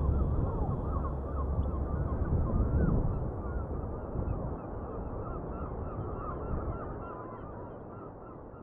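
A flock of birds calling over one another in many short, honking calls, slowly fading out, over a low rumble that dies away in the first few seconds.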